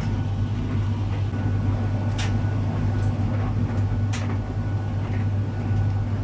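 Arçelik 3891KT heat-pump tumble dryer running just after start, its compressor giving a steady low hum. This is the normal compressor sound of the machine, not a sign of a fault. Two short clicks come about two and four seconds in.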